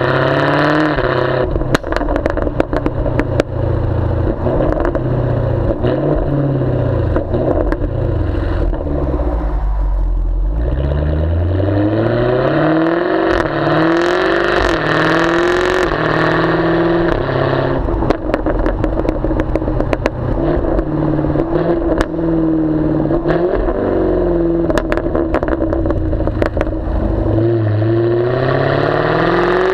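2014 Jaguar F-Type V8S's supercharged 5.0-litre V8, heard at its twin tailpipes with the exhaust baffles open. The engine climbs and falls through the revs again and again under throttle and on lifting, sinking to a low drone about ten seconds in before rising again. Many sharp pops and crackles sound on the overrun.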